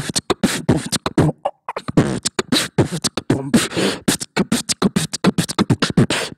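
Human beatboxing into a handheld microphone held cupped against the mouth: a fast run of percussive mouth sounds imitating a drum kit, with short sung or hummed tones between the strikes and a brief break about a second and a half in.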